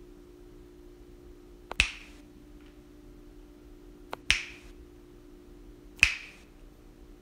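Three finger snaps, about two seconds apart, each a sharp crack with a short hissy tail, over a faint steady hum.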